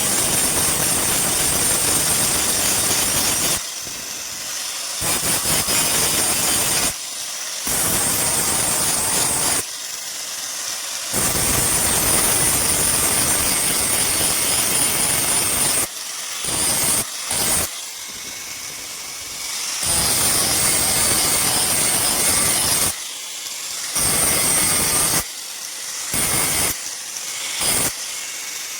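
Steel being ground on a power grinder. The grinder runs throughout with a high whine, and grows loud in repeated passages of a few seconds, several short ones near the end, each time the blade is pressed to the wheel.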